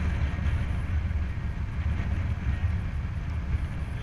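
Wind rumbling and buffeting on the microphone of a helmet-mounted camera on a moving road bike: a steady low rumble that wavers in strength.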